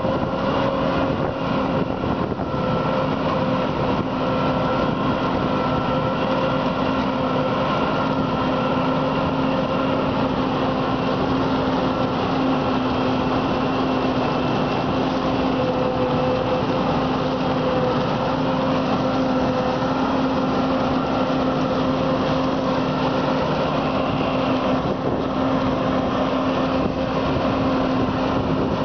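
Self-propelled forage harvester chopping standing maize and blowing it into a trailer, with the tractor pulling the trailer running alongside: a steady, unbroken machine drone with a constant hum that holds its pitch throughout.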